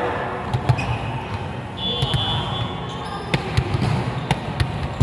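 Volleyball being played on an indoor court: several sharp smacks of the ball off players' hands and arms, and a brief high squeak about two seconds in, over a steady low hum of the hall.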